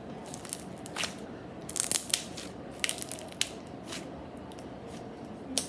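Clear homemade slime being squeezed and played with by hand, giving a series of sharp clicks and pops as trapped air bursts, bunched around the middle.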